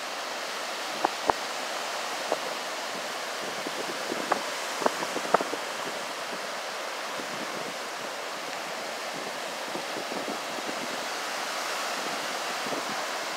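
Ocean surf breaking and washing up the beach, a steady rushing hiss with wind on the microphone. A few short, sharp clicks in the first half.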